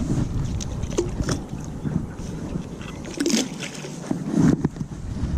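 Water sloshing and splashing with scattered sharp knocks as a fishing magnet on its rope is worked in the lake, over wind buffeting the microphone; two louder splashes come about three and four seconds in.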